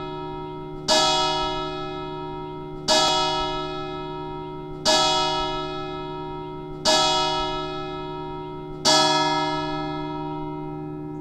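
A single bell tolling slowly, struck five times about two seconds apart, each stroke ringing on and fading under the next, over a steady low hum left from the bell.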